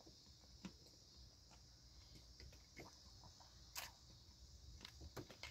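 Near silence: a steady faint hiss with a few soft clicks and smacks of someone quietly chewing chocolate-coated ice cream bites. The loudest click comes nearly four seconds in.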